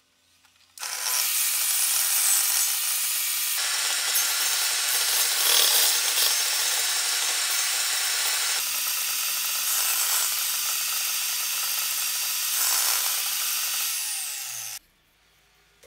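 Table saw running and crosscutting a wooden board at 45 degrees on a crosscut sled: a steady, loud saw noise with a low motor hum. It starts about a second in and cuts off suddenly near the end.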